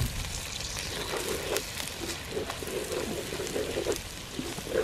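Sliced onions, shallots, green chillies and fresh curry leaves sizzling in hot oil in a pot, with a spatula scraping and stirring them in irregular strokes and a few sharp crackles.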